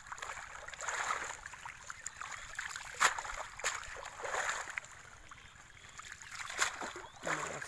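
A wet cast net is hauled out of shallow pond water and shaken, with water splashing and streaming off the mesh in several swells and a few sharp clicks.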